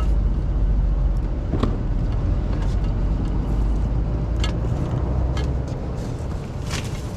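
Steady low rumble of a car on the move, heard from inside the cabin, easing off near the end, with a few light clicks.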